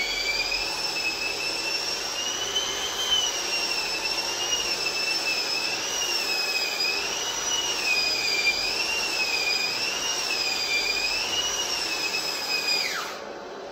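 Bauer 9-inch electric drywall sander running against a ceiling, its high whine wavering up and down in pitch over the rush of a Festool vacuum drawing dust through the hose. Near the end the sander is switched off and its whine falls away in a quick downward glide, leaving a quieter steady hiss.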